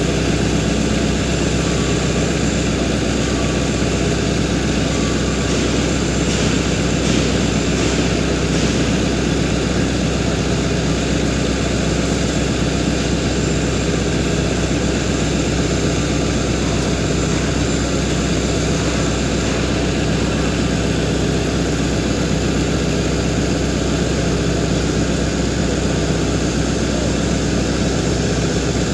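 Diesel engine of a Hitachi Zaxis hydraulic excavator running steadily, an even drone that holds the same pitch throughout.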